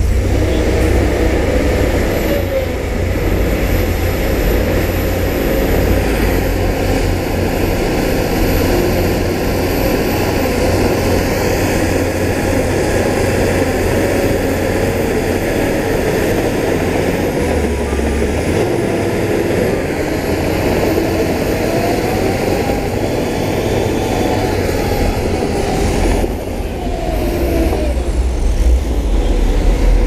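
Heavy diesel earthmoving machinery running steadily under load. Its low drone carries a pitch that rises and falls in places and dips briefly about four seconds before the end.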